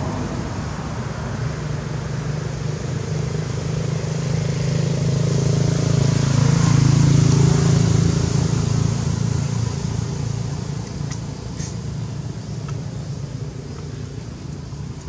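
A motor vehicle's engine passing by, growing louder to its peak about halfway through and then fading away.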